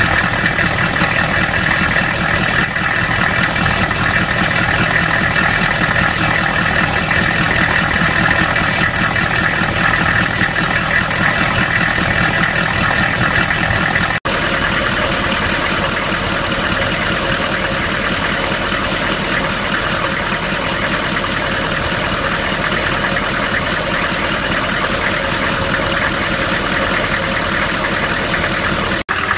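1994 Chevy Silverado C1500's 6.5 L turbo-diesel V8 running steadily with a rapid, even knocking under the normal diesel clatter: the knocking noise the owner is tracking down. The sound breaks off briefly about halfway through.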